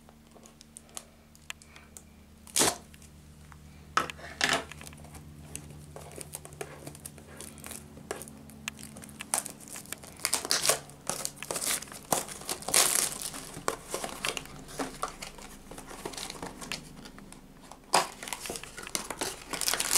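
Plastic shrink wrap on a cardboard booster-bundle box being cut with scissors and peeled off: scattered crinkling, crackling and tearing, busiest about halfway through.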